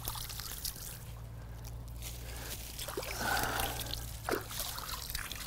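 Water dripping and trickling off a clump of wet lake weed lifted from the water, with a louder slosh of water about three seconds in.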